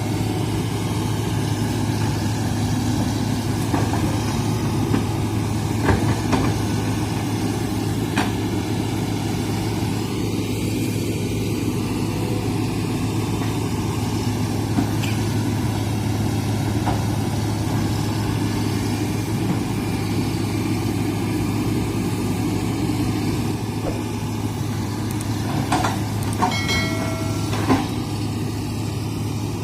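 Hitachi excavator's diesel engine running steadily, with scattered short knocks and cracks, several close together near the end.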